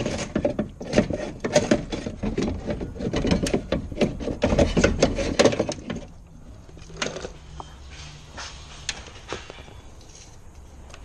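Hyundai i20 power window regulator being worked out of the door through the inner panel opening: a dense run of rattles, knocks and scraping of the metal rails against the door's sheet metal for about six seconds, then quieter with a few scattered clicks.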